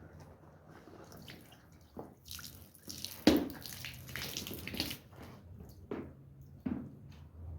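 Water splashing and dripping during the washing of a wet wool rug: irregular splashes and slaps, busiest in the middle with one sharp loud splash, then a few single drips and hits, over a faint low steady hum.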